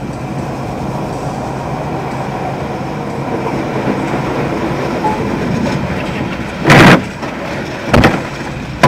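Steady road rumble of a heavy truck driving, heard from inside its cab, broken near the end by a loud crash of collision with an oncoming truck, followed by two more sharp bangs about a second apart as debris strikes.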